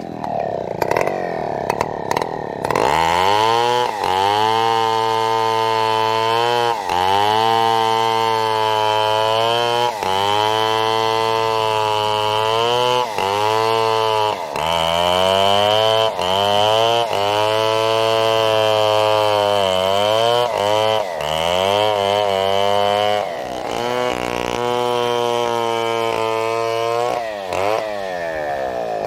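Two-stroke chainsaw cutting a fallen coconut trunk into lumber. It jumps to full revs about three seconds in, and its pitch dips and recovers again and again as the chain bogs under load in the wood.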